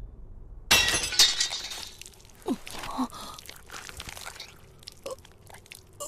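Anime sound effect: a sudden shattering crash about a second in, with a bright tinkling tail. Scattered small clinks follow, along with a couple of short sounds that slide down in pitch.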